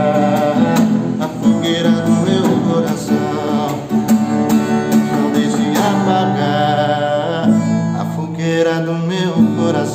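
Acoustic guitar strummed as accompaniment to a sertanejo love song, with a man's voice singing a wordless melodic line over it.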